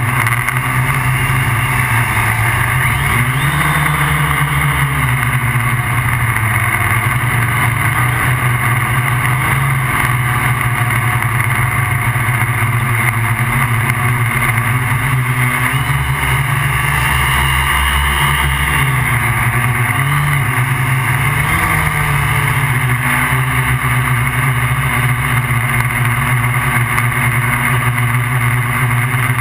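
Steady, loud buzz of a MikroKopter QuadroKopter XL quadcopter's electric motors and propellers in flight, its pitch wavering up and down now and then as the motors change speed.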